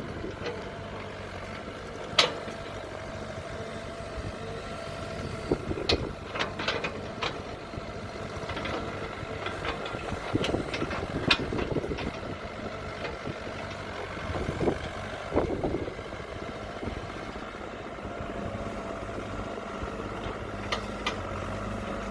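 Kobelco 07 excavator's diesel engine running steadily while it digs, with several sharp knocks scattered through, and the engine working harder for a second or two about 10 and 15 seconds in.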